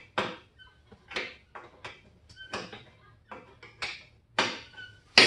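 A rusted nut being turned off with a hand wrench, shearing through its cotter pin. It makes a string of short gritty metal scrapes with faint squeaks, a few to the second, then a single loud metal clank near the end.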